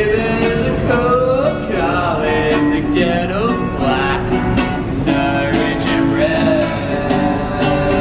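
A man singing while strumming an acoustic guitar, with strums about twice a second under the voice.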